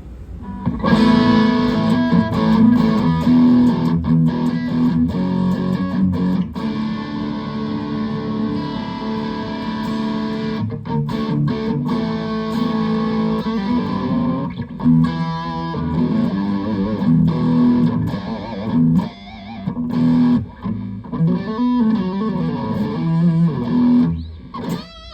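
Electric guitar played through the Nux Cerberus pedal's distortion, sustaining heavily distorted chords and riffs. There are a few short breaks, and some bent, wavering notes in the second half.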